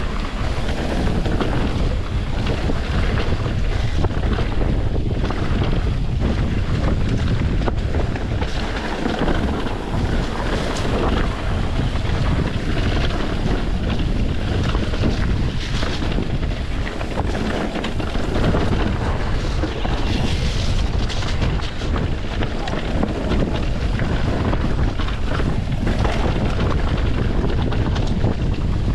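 Wind buffeting the microphone of a mountain bike's camera during a fast downhill run, a steady heavy rumble, with tyres on the dirt trail and frequent short knocks and rattles from the bike over rough ground.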